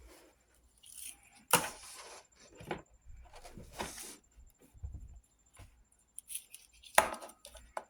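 Handling clatter on a workbench: a few sharp knocks and clinks of small hard objects being picked up and set down, the loudest about a second and a half in.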